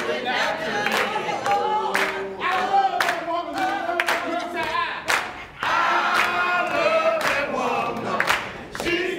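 A group of voices singing together, with hand claps on the beat about twice a second.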